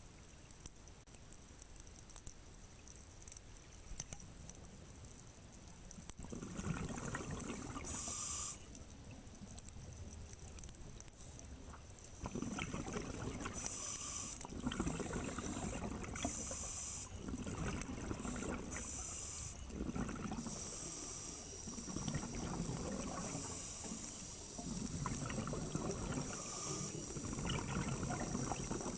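Scuba diver breathing underwater through a regulator: a short high hiss on each inhale alternating with a longer rush of exhaled bubbles, repeating every two to three seconds. It starts about six seconds in; before that there is only a faint low rumble.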